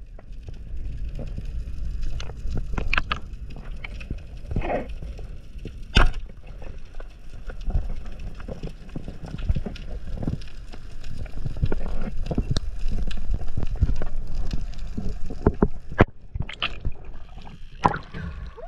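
Muffled underwater rumble of water moving past the diver and camera, with scattered small clicks. About six seconds in, one sharp crack: a wooden, rubber-band-powered speargun firing its shaft into a kingfish.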